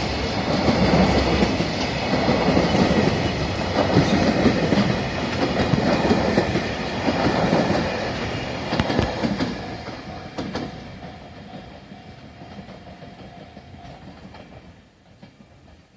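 Freight train wagons rolling past after slowing, wheels clacking over the rail joints, with a few sharp clanks about nine to ten seconds in. The rumble then fades steadily as the end of the train moves away.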